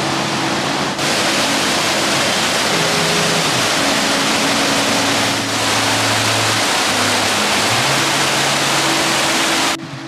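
Water pouring over canal lock gates: a loud, steady rush, with background music playing underneath. The rush drops away suddenly just before the end.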